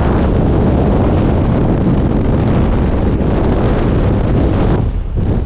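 Loud, steady wind rush buffeting the camera microphone at the open door of a jump plane in flight, in the slipstream outside the fuselage. About five seconds in, the higher part of the rush briefly drops away.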